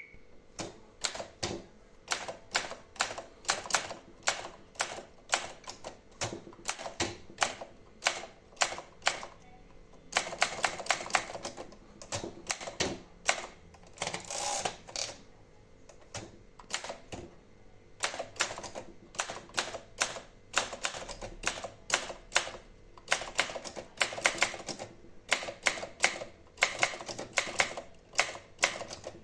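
Olympia Monica manual portable typewriter being typed on: a run of sharp key strikes, several a second in an uneven rhythm, broken by short pauses.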